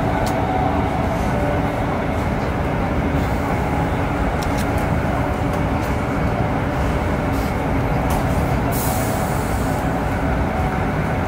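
Steady rumble and rush of a CRH380 high-speed train running at speed, heard inside the passenger car. A few faint ticks and a brief hiss come about nine seconds in.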